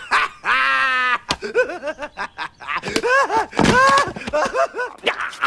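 Men's voices in cartoon film dialogue, with one long, wavering vocal sound about half a second in, then quick talking.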